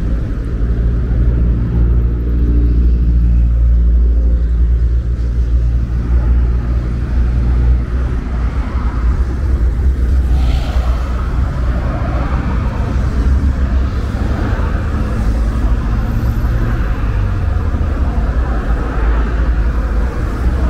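Road traffic on a multi-lane city avenue: cars passing one after another, engine and tyre noise over a steady deep rumble. An engine hum stands out for the first few seconds, and a car passes close about ten seconds in.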